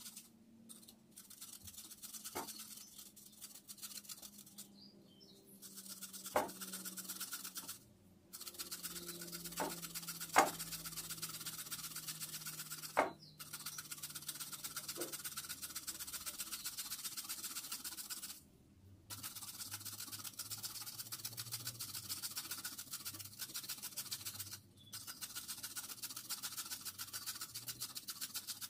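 Carrot being grated on a small metal hand grater: a steady, rapid scratchy scraping with a few sharp knocks against the bowl. The sound stops abruptly several times.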